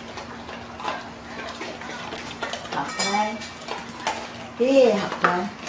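Dogs eating from stainless steel bowls, the metal bowls clinking and scraping in quick irregular clicks. A person's voice cuts in briefly about three seconds in and again, loudest, near five seconds.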